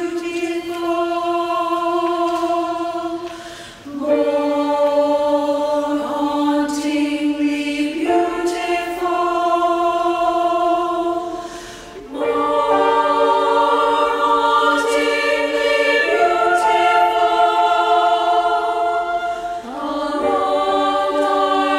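Treble choir of women's voices singing slow, long-held chords that shift every few seconds, with two brief breaks in the sound.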